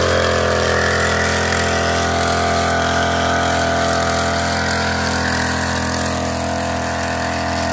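Knapsack power sprayer's small petrol engine running steadily at a constant speed while the lance sprays a fine mist.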